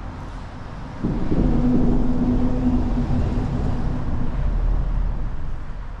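A vehicle crossing the road bridge overhead: a low rumble with a steady hum that swells suddenly about a second in and fades away near the end.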